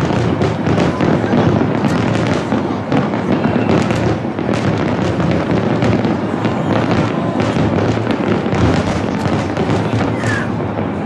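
Dense fireworks barrage: many aerial shells bursting in quick, overlapping succession, merging into a loud, continuous rumble of booms and bangs.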